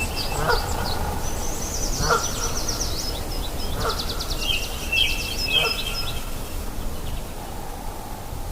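Several birds calling back and forth: a short call repeated about every one and a half to two seconds, with high chirps and a fast trill in the middle, over a steady low background rush from the river.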